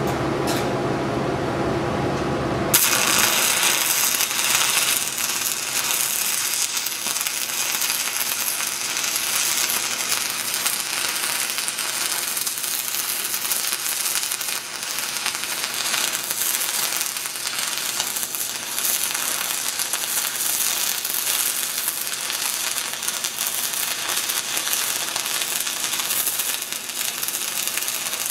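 A low hum, then about three seconds in an E6010 stick-welding arc strikes and crackles steadily as a downhill hot pass is run on steel pipe.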